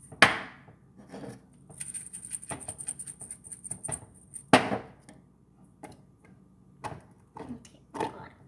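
Seasoning shaken from a small container into a toy mini crockpot: about two and a half seconds of rapid fine rattling. There are two sharp knocks, one just after the start and one about four and a half seconds in, and a few lighter taps near the end.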